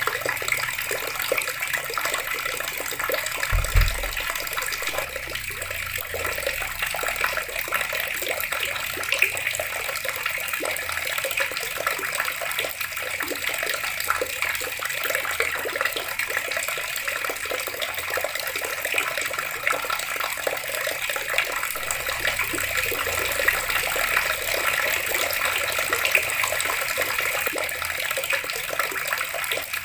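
Water running steadily from a tap, an even splashing stream. A single brief low thump sounds about three and a half seconds in.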